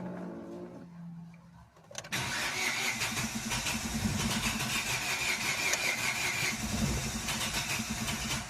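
A car engine being cranked on the starter for about six seconds, starting suddenly about two seconds in, a rhythmic pulsing grind with a high whine through the middle, then stopping. This is the noise on starting that the owner traced to a weak battery, not a fault in the starter itself.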